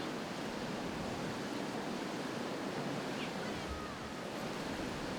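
Steady wash of ocean surf and wind, with a few faint short chirps a little past the middle.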